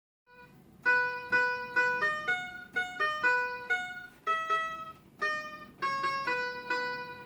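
Toy guitar playing a melody of plucked-sounding notes, about two a second, each starting sharply and fading.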